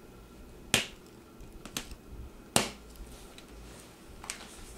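Two sharp snaps about two seconds apart, with a few fainter clicks, as a small knife cuts the cardboard packaging on a metal mesh terrarium screen top.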